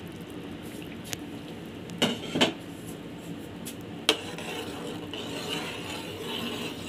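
Steel spoon stirring milk in a metal pot, clinking against the pot a few times. The loudest knocks come as a pair about two seconds in, with another near four seconds.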